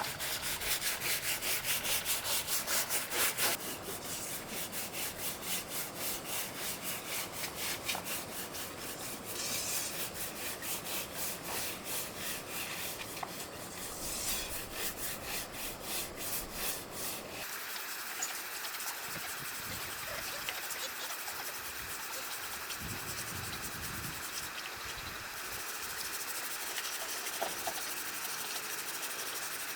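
Quick, even back-and-forth rubbing or scraping strokes, like a hand tool worked against a rough surface. About 17 seconds in, the strokes stop and a steady hiss is left.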